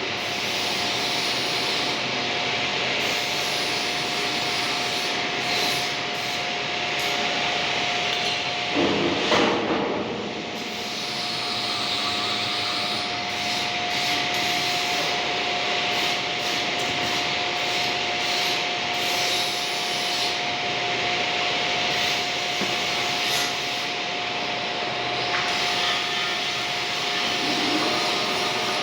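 A lathe running steadily, with a constant high whine over a steady rasping hiss and a brief louder surge about nine seconds in.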